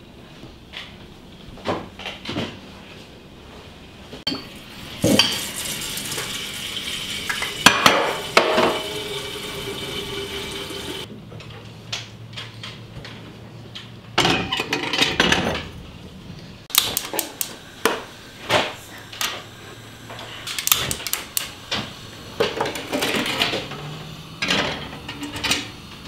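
Clatter of household metalware: an enamel kettle and its lid knocking and clinking on the iron grates of a gas stove, among repeated sharp knocks through the second half.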